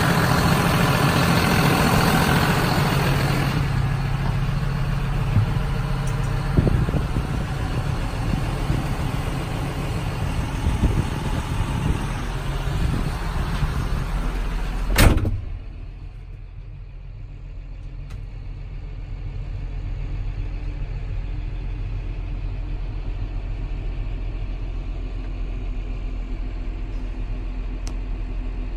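John Deere 6150R tractor's six-cylinder diesel engine idling steadily, heard up close. About halfway through, the cab door shuts with one loud thud, and after that the engine is much quieter and muffled, heard from inside the cab.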